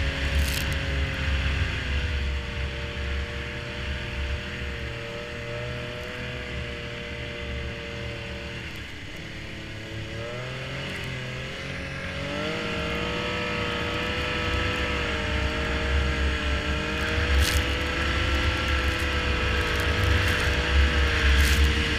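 Snowmobile engine running under load, its pitch dropping as it slows about halfway through, then rising and getting louder as it speeds up again.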